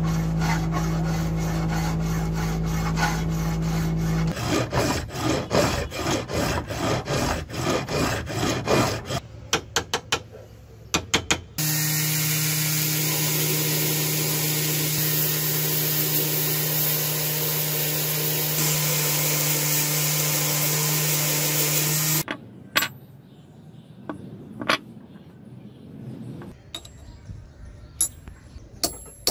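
Bench belt grinder running, its motor hum joined by a steady hiss as the abrasive belt grinds a brass plate for about ten seconds in the middle. Earlier there are quick rhythmic scraping strokes. Near the end come a few sharp, ringing taps of a steel punch on brass resting on an anvil.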